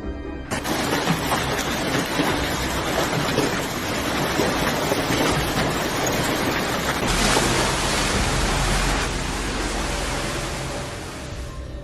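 Loud steady rushing noise that cuts in abruptly about half a second in, shifts at about seven seconds, and fades near the end.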